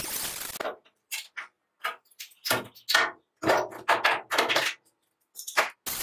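Angle grinder with a cutting disc slicing into a steel oil drum: a steady hiss that, about a second in, breaks into a string of short, sharp bursts with dead silence between them, then runs steady again at the very end.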